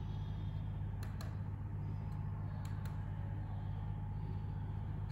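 Two pairs of light clicks, about a second and a half apart: the Dell P2419H monitor's menu buttons being pressed and released to work its on-screen menu. Under them runs a steady low hum.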